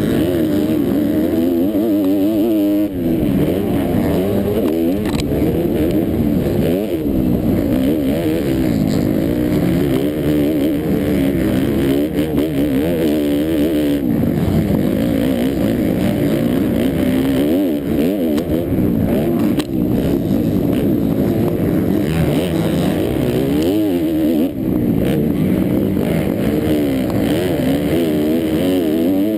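Motocross bike engine heard close up, revving hard and continuously rising and falling in pitch as the throttle is worked and gears change through the ride, with a few brief drops in loudness.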